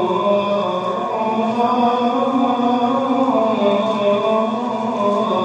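A man's voice chanting in long held notes that glide slowly up and down, without pauses.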